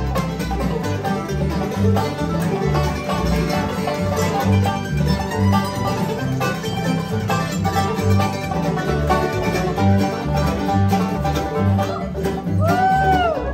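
Bluegrass band playing an instrumental break, with no singing: banjo, mandolin and acoustic guitar picking over an upright bass plucking steady notes about twice a second. Near the end a note bends up and back down.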